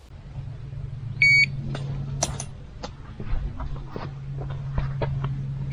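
Electronic carp bite alarm beeping once, high and short, about a second in, and again right at the end, as line movement on a rod registers a bite. Under it run a steady low hum and scattered light clicks.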